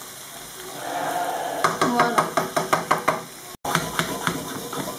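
A spatula knocks against a frying pan in a quick series of taps, about four or five a second, while skate wings sizzle in butter and oil. After a sudden cut, diced potatoes sizzle in a second pan.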